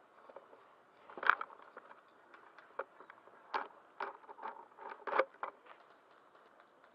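Irregular crackling and snapping, like dry leaves and twigs being stepped or pushed through, with two louder snaps about a second in and about five seconds in.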